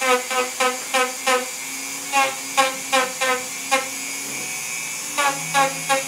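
Handheld rotary tool running, its small burr touched into the wood again and again, about three times a second, in runs. Each touch brings a short whine that drops in pitch as the bit cuts a small groove for surface texture. About two-thirds of the way through there is a pause of about a second and a half in which the tool just runs steadily.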